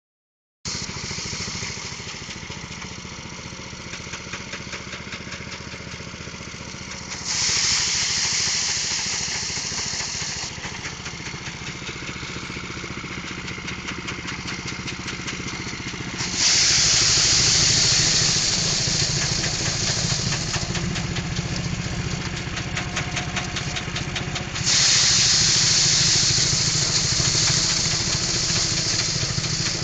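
Engine-driven rice threshing machine running steadily, its low engine note under a hissing rush, which three times swells into a much louder, harsher hiss for a few seconds at a time.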